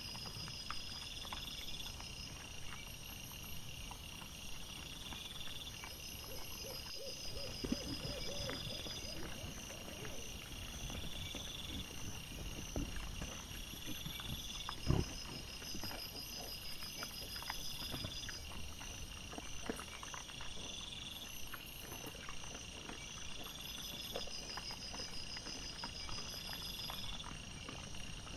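Night insects chirping in repeating high trains, with scattered rustles and clicks from a young wild boar foraging through dry grass and one louder knock about halfway through. A short series of low calls comes about a quarter of the way in. The footage is sped up about fourfold, which quickens the rhythms.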